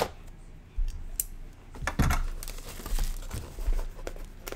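Clear plastic shrink wrap being torn and crinkled off a box of trading cards, in irregular rustling tears with a few handling knocks against the box.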